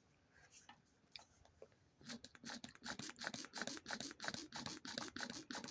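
Hand pressure/vacuum tester pump worked in quick strokes, building pressure in a chainsaw crankcase for a leak test. A fast run of short squeaky, scraping clicks starts about two seconds in, several strokes a second.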